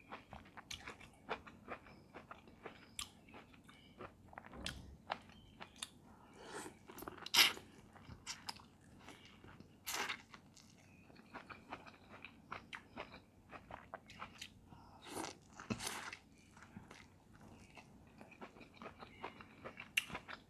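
A person biting and chewing seafood-boil food, with many short, sharp crunches and clicks; the loudest come a little after 7 seconds and again about 10 seconds in.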